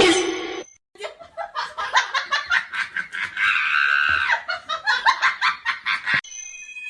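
Laughter in quick repeated bursts, rising to a high held squeal in the middle, then cut off suddenly near the end.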